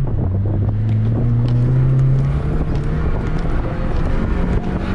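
Honda Fit's four-cylinder engine accelerating hard on an autocross run, its pitch climbing for about two seconds, then dropping away before settling onto a higher steady note near the end.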